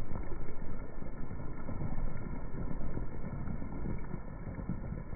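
A rainstorm's rain noise, slowed down with the slow-motion footage so it is pitched far down: a steady, deep wash with an uneven flutter and nothing high in it.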